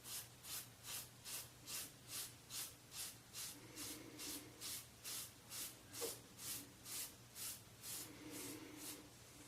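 Rockwell 6C safety razor with a SuperMax Blue Diamond blade scraping stubble off a scalp lubricated with hair conditioner, in short, even, faint strokes, about two and a half a second. A single sharp click about six seconds in.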